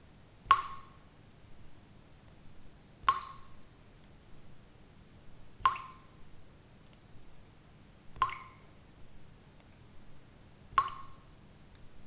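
Water drops falling one at a time at a steady rhythm: a clear, ringing plink about every two and a half seconds, five in all, with faint softer ticks between them.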